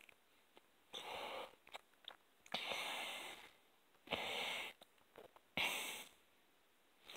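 Heavy breaths in and out through the nose, four in all, each about half a second long, with small wet clicks of chewing between them from a mouthful of burger.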